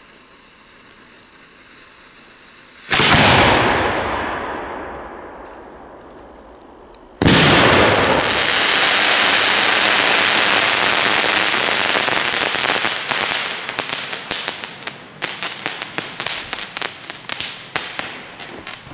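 100mm gold crackling willow firework shell: the mortar's lift charge fires with a sudden bang about three seconds in, fading over a few seconds. About four seconds later the shell bursts with a second loud bang, followed by the dense crackle of the gold willow stars, which slowly thins into many separate sharp crackles as they fall.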